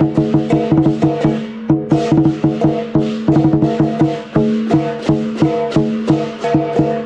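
Lion dance drumming: a large Chinese lion dance drum beaten in a fast rhythm of several strokes a second, with percussion ringing under it.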